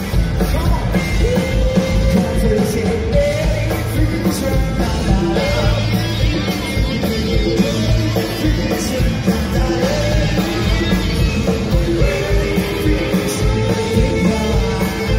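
Live rock band playing: electric guitars, bass and drums, with a singer's melody over the top.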